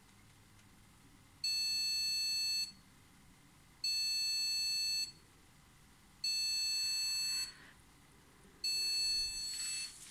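Desktop PC's motherboard speaker giving four long, high-pitched beeps, each a little over a second, repeating about every two and a half seconds: a POST error code from a computer that powers on but cannot boot, with nothing on the screen.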